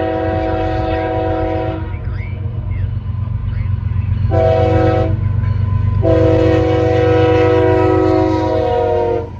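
Diesel locomotive's multi-chime air horn sounding a chord: a long blast that ends about two seconds in, a short blast, then another long blast. A heavy diesel engine rumbles underneath throughout.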